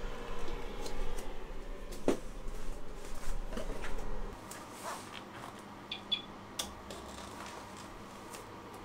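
Handling noise with a few light knocks and clicks. A low hum drops away about four seconds in, and two very short high chirps sound about six seconds in.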